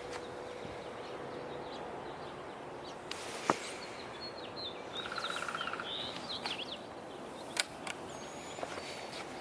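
Vintage 16-inch Sanyo oscillating table fan running with a steady rush of air, with a few sharp clicks and faint bird chirps around the middle.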